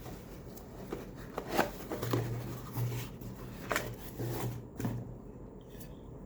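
Quiet handling noises: a few sharp clicks and short rustles, with a low hum that comes and goes in the middle.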